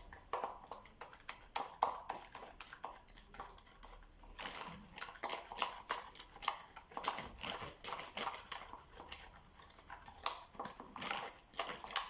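A spoon working a thick, sticky paste of turmeric, honey and lemon juice in a small bowl, making irregular soft clicks and squelches, several a second, as the mixture is stirred together.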